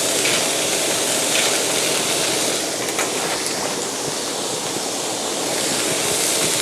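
Diced vegetables and ham stir-frying in butter in a pan: a steady sizzle with a few light clicks, as the seasoned filling is stirred together.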